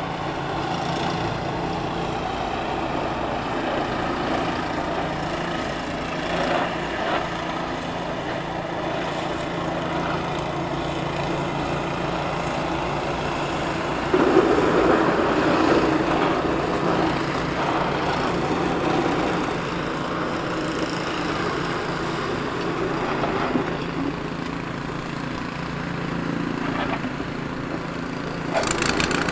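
Pickup truck engine running steadily as the truck plows snow, with a louder, noisier stretch about halfway through.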